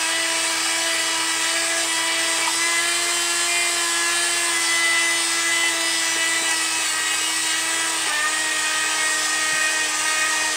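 Battery-operated Zadak toy robot switched on and running: a loud, steady whirring drone that drops slightly in pitch about eight seconds in.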